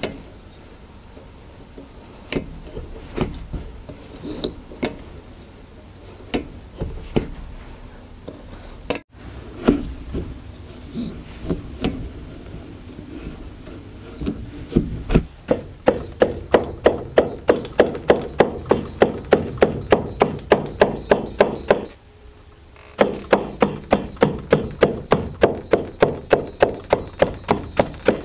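Hand tools at a vertical carpet loom: scattered clicks and taps while knots are tied and cut. Then, from about halfway, a fast, even beating of about three strikes a second as a beater comb packs the knots and weft down. The beating stops for about a second and then resumes.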